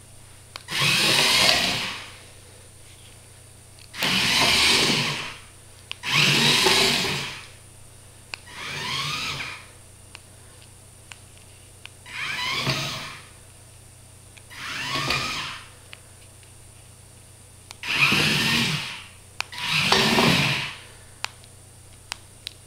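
Small electric gear motors of a hobby robot car driving it in eight short runs of about a second each, each a whirring whine that rises in pitch as the wheels spin up and falls as they stop. Faint clicks come between the runs.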